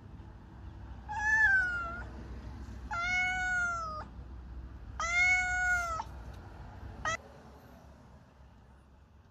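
A cat meowing: three drawn-out meows of about a second each, then a short one, over a low hum that cuts off about seven seconds in.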